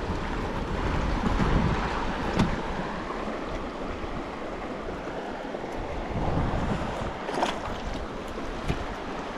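Shallow creek water running over rocks, a steady rushing wash, with wind buffeting the microphone and a few brief clicks.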